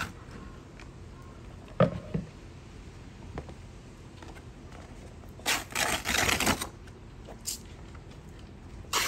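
A wooden cutting board set down on a plastic cooler lid with a single sharp knock, followed by a second or so of paper-like rustling and small clicks from handling a sheet of sandpaper, and a short scrape near the end.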